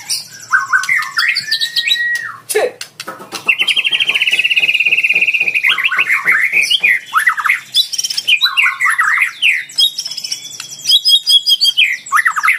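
White-rumped shama singing a loud, varied song: whistled phrases and slides, a long rapid rattle from about three to six seconds in, then quick trills and chatter. It is the shama's 'fighter' song in full voice, used as a lure to provoke rival birds into singing.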